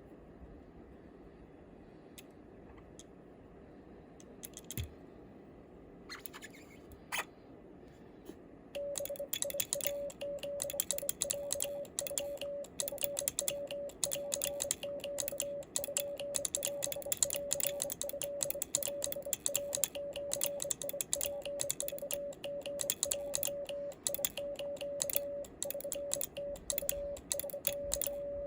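Home-made stainless-steel bug (semi-automatic Morse key) clicking rapidly as it sends Japanese Morse code, with a steady sidetone beeping on and off in the rhythm of the code from about nine seconds in. Before that there are only a few isolated clicks.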